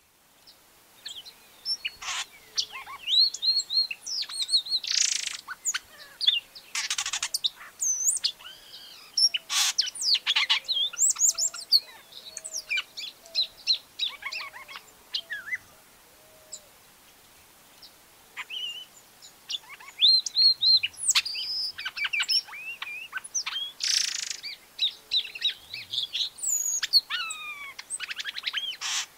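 Boyerito (epaulet oriole, Icterus cayanensis) singing: a varied run of quick whistled notes, slurs and chirps in phrases, broken by a few harsh raspy notes, with a lull a little past halfway.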